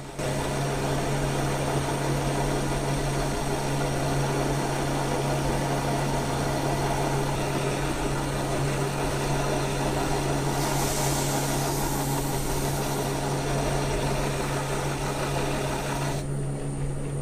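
Metal lathe taking a heavy roughing cut on steel bar: the motor and drive hum steadily under the scraping, grinding noise of the tool cutting. The cut is being forced without lubricant, which leaves a chattery finish; it turns harsher and hissier around the middle, and the cutting noise stops about a second before the end while the lathe keeps running.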